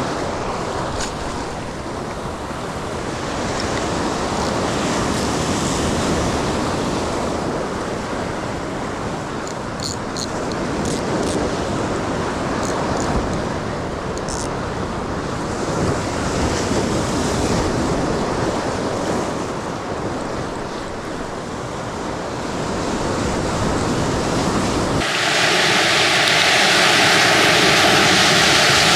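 Sea waves washing on the shore, with wind rushing over the microphone. About 25 seconds in, the rush turns louder and brighter, with a steady hum under it.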